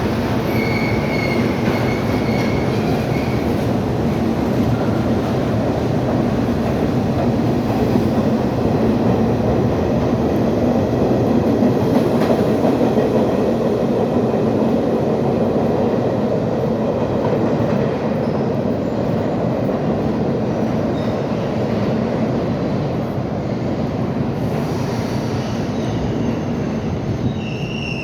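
R68 New York City subway car running with its traction motors howling, the sound swelling to a peak about halfway through and easing off after. Brief high-pitched squeals come near the start and again at the end.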